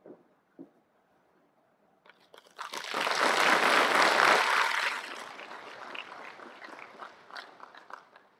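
An audience claps. The clapping starts abruptly about two and a half seconds in, is loudest for about two seconds, then thins out into scattered claps that stop shortly before the end.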